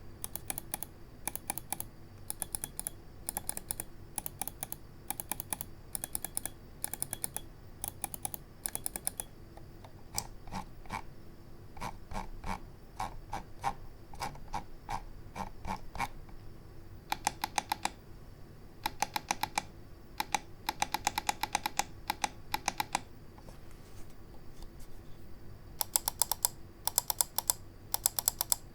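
Scyrox V6 gaming mouse buttons clicking: sharp clicks in short, evenly spaced groups, then lower-pitched clicks, then fast strings of rapid clicks in the second half and again near the end.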